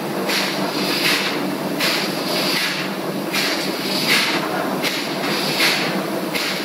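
Steady machinery drone with a low hum under it, and a hiss that swells and fades about three times every two seconds.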